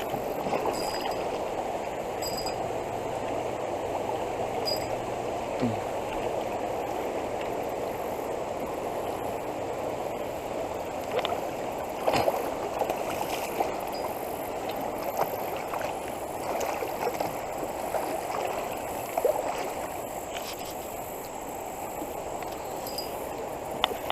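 Fast-flowing floodwater of a creek rushing steadily past a canoe, with a few sharp clicks and knocks scattered through it.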